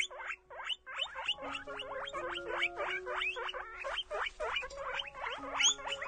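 Guinea pigs squeaking in a rapid, continuous run of short high squeaks, about five a second.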